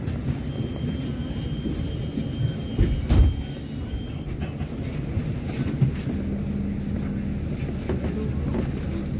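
Steady low rumble of a city bus heard from inside the cabin, with a loud thump about three seconds in.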